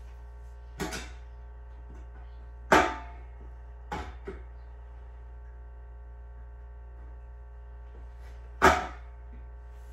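Stainless steel legs and hardware of a glass-top dining table knocking and clunking, five sharp knocks in all, the loudest about a third of the way in and near the end. A leg is being forced onto the upturned table because its bolt holes do not line up. A faint steady hum runs underneath.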